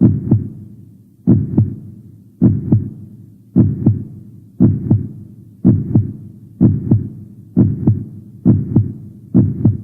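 Heartbeat sound effect: lub-dub double thumps, about one pair a second. The beats gradually quicken, coming closer together toward the end.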